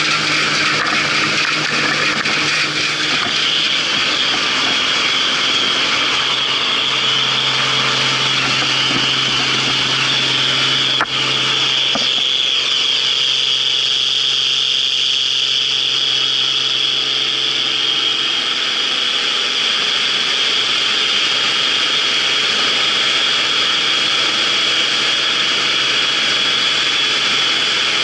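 Claas Dominator 88 combine harvester running steadily under harvest load: its engine and threshing machinery make a continuous loud mechanical din with a hissing high edge. There is one sharp click about eleven seconds in.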